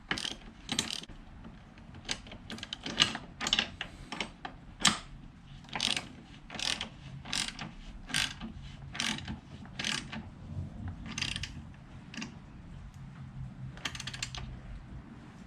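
Wrench ratcheting in short strokes as a rear-set mounting bolt is tightened: a run of sharp metallic clicks, roughly one to two a second, with a short lull before a last group near the end.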